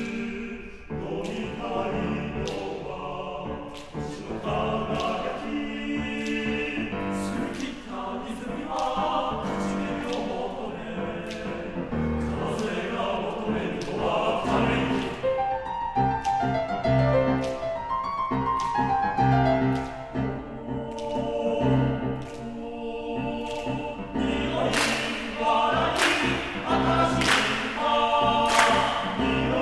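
Choir singing a Japanese choral song with piano accompaniment, in sustained chords that grow louder in the last few seconds.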